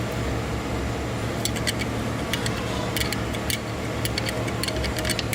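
Light metallic clicks and taps at irregular spacing as a 19 mm wrench works at a stubborn oil drain plug, over a steady low shop hum.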